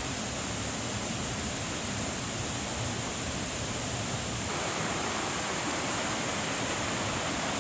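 Steady rush of flowing water from a creek or small cascade: a constant, even hiss with no breaks, growing a little louder about halfway through.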